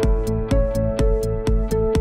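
Electronic background music with a steady beat and sustained synthesizer tones.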